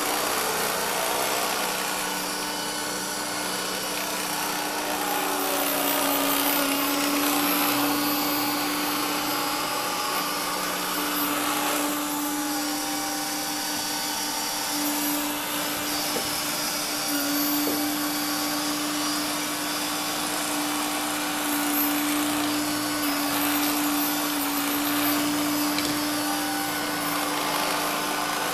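AEG robot vacuum cleaner running, its suction fan and brushes giving a steady whirring hum over a constant low tone.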